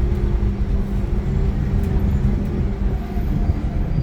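Iveco Crossway LE 12 bus with its Cursor 9 six-cylinder diesel engine running: a steady, loud low rumble with a constant hum under it.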